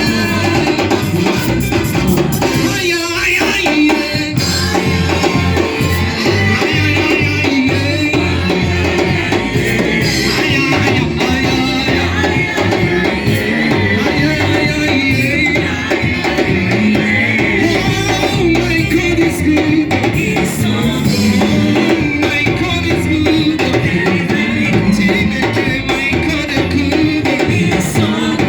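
Live church worship music: voices singing over a band with a drum kit.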